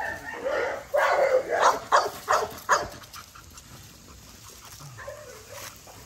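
American bully puppies yapping: a quick run of short, high barks over the first three seconds, then quieter.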